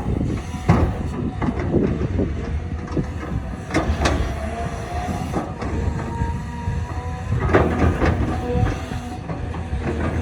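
Hydraulic excavator at work: the diesel engine runs steadily under repeated metallic clanks and knocks, with a thin squeal that comes and goes.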